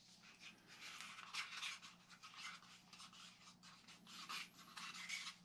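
Wooden stir stick mixing epoxy resin and hardener in a cup: a faint, irregular scraping and rubbing as the stick works around the sides and bottom.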